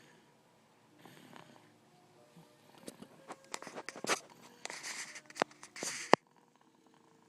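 A soft snoring breath about a second in. Then a few seconds of loud crackling and rustling of a diaper being handled, with sharp ripping clicks, stopping suddenly.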